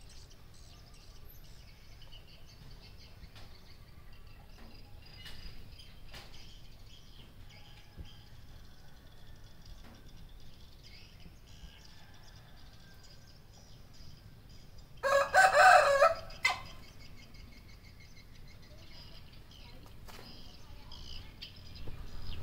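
Rooster crowing once about fifteen seconds in, a short crow of about a second and a half.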